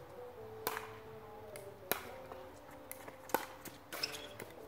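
Pickleball paddles hitting a plastic pickleball back and forth in a rally: a few sharp pops about a second or so apart. Faint background music with held notes plays underneath.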